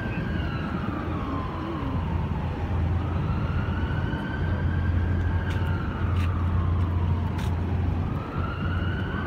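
Emergency vehicle siren wailing slowly, rising and falling in pitch about twice, over a steady low rumble.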